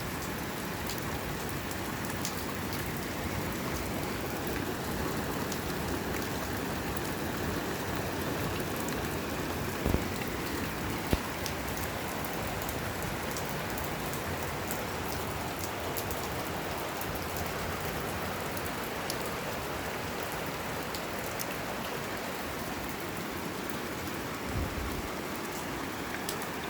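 Steady rain falling and pattering on surfaces, an even hiss of drops throughout. Two sharp knocks sound about ten and eleven seconds in.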